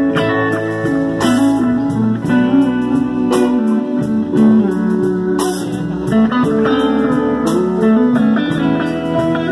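A live band playing, led by two electric guitars, one of them a Stratocaster-style guitar, with regular short hits through the music.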